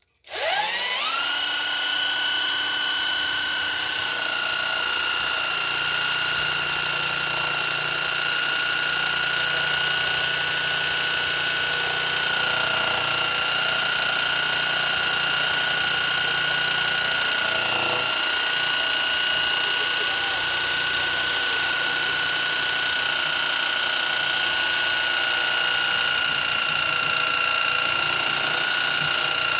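Electric drill motor spinning up to speed about a second in, then running at a steady high whine without letup.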